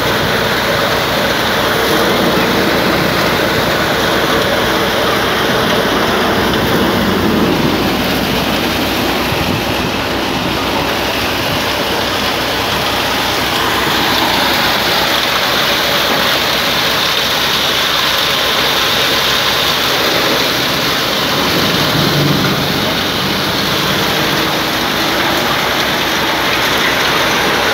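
An engine running steadily under a loud, even rush of machinery noise.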